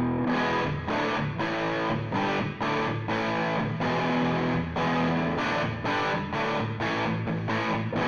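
Electric guitar played through the Flamma FG200 multi-effects pedal on its factory preset P1B, a distorted tone: chords struck over and over in a steady, fairly quick rhythm.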